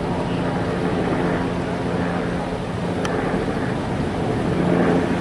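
A vehicle engine idling with a steady low hum, over street traffic noise. A brief tick about three seconds in.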